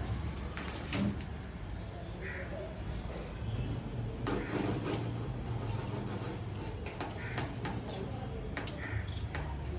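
Rose-ringed parakeet giving a few short, harsh squawks, among scattered sharp clicks and knocks.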